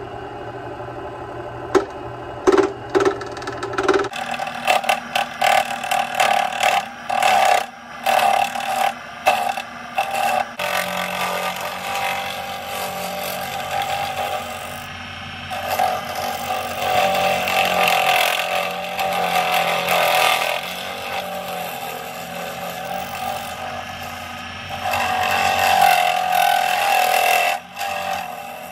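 Small lathe motor running while a turning tool cuts a spinning HDPE plastic blank. Through the first ten seconds or so the cut is broken by many sharp, irregular knocks; after that it settles into a steadier scraping and cutting sound that swells and fades.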